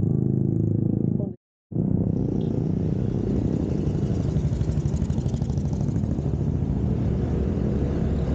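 Motor scooter engine running as it is ridden, with wind noise on the microphone. The sound drops out completely for a moment about a second and a half in, then picks up again with more wind.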